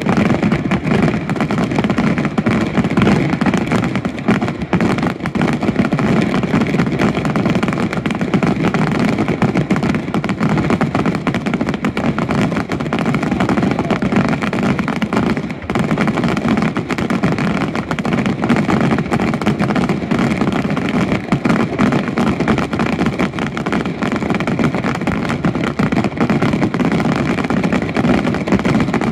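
Daytime aerial fireworks: a dense, continuous crackle of many small shells bursting together, with a short dip about fifteen seconds in.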